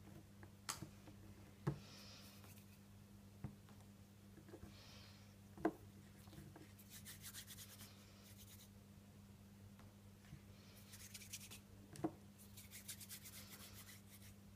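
Hands rubbing and rolling Play-Doh, palm against palm and on the tabletop: faint hissy rubbing strokes in several short spells, with a few light taps against the table. A steady low electrical hum lies underneath.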